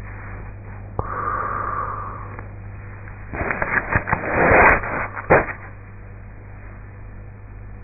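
A sleeping woman breathing: a soft breath about a second in, then about two seconds of crackling and clicking, the loudest sound here, over a steady low hum.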